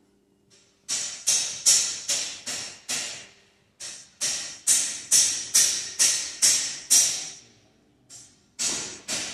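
Brisk footsteps on a hard workshop floor, about two to three steps a second, each with a short echo. There are two short pauses, about three and a half and seven and a half seconds in.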